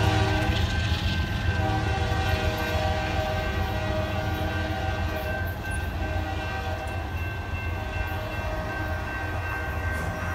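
Diesel-hauled freight train rumbling as it pulls away, slowly fading. Its multi-note horn sounds over the first four seconds or so, with a short break near the start.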